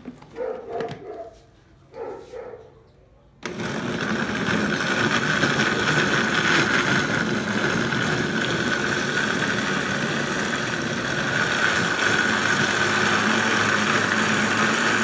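Countertop blender switched on about three and a half seconds in after a few soft knocks, its motor then running steadily at high speed, puréeing whole yellow 7 Pot Primo peppers in oil and vinegar into a smooth sauce.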